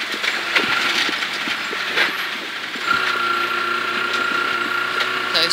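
Rally car driven along a gravel forest stage, heard from inside the cabin: engine and tyre noise with scattered sharp ticks of gravel striking the car. About three seconds in, the engine settles into a steady, even note.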